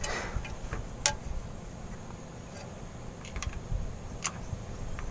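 Scattered sharp clicks and taps from hand tools working a new hose clamp onto a fuel hose, the loudest about a second in, over a low background rumble.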